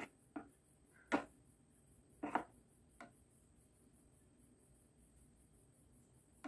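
A steel spoon knocking and scraping against a bowl of batter while a snack is dipped and lifted out, about five short clicks in the first three seconds.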